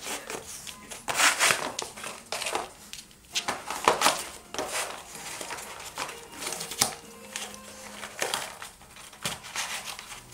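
A Welsh springer spaniel tearing and chewing a cardboard egg carton: irregular crunching and ripping in quick bursts, the loudest about a second in and around four seconds in.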